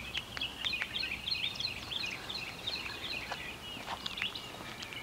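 Birds chirping outdoors: a continuous run of short, high chirps, with a few faint clicks among them.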